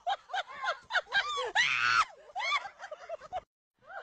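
Domestic fowl giving quick, short, repeated cries, with a child screaming once about halfway through. The sound cuts off shortly before the end.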